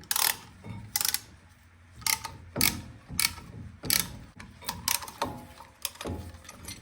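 Ratcheting caliper piston compression tool clicking in a series of strokes, roughly one or two a second, as it pushes the brake caliper's pistons back into their bores.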